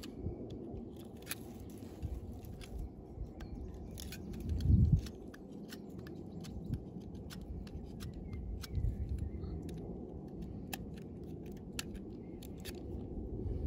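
Scattered small clicks, snips and scrapes of hand tools cutting and working a tree branch and its bark for a graft, over a low rumble, with a brief louder low rumble about five seconds in.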